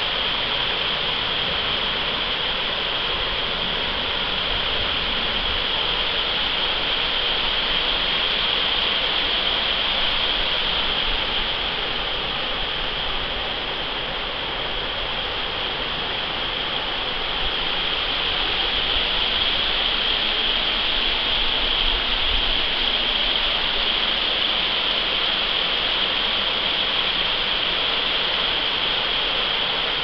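Shallow creek water rushing steadily over rocks in riffles: a continuous, even babble.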